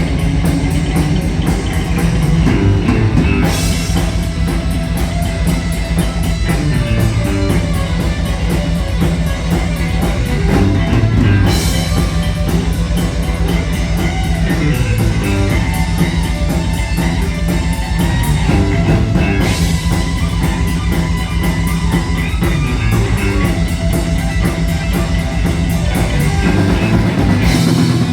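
Live heavy metal band playing an instrumental passage: distorted electric guitar and bass riffing over a drum kit with a fast, even beat. A crash cymbal hits roughly every eight seconds, four times.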